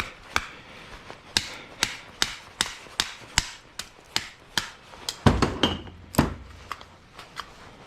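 Repeated hammer blows, about two or three a second, breaking apart a salvaged item for scrap, with two heavier, deeper blows about five and six seconds in, then a few lighter taps.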